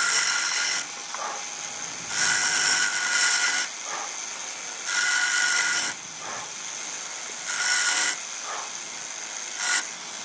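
Titan power checkering tool running steadily, with its cutter rising to a louder, high-pitched whine in passes of a second or so, four times and once briefly near the end, as it cuts checkering lines into a black walnut gunstock.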